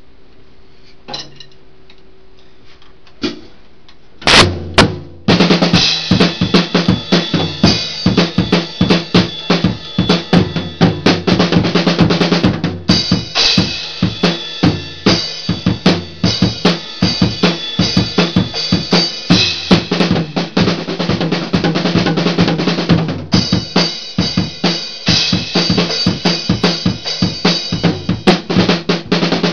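Acoustic drum kit played solo: a few faint taps, then loud hits about four seconds in, then fast, busy playing on snare, toms, bass drum and cymbals.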